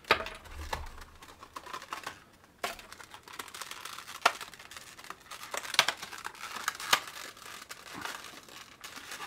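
Clear plastic packaging crinkling and crackling as it is handled and opened to free a small speaker, with irregular sharp clicks and snaps.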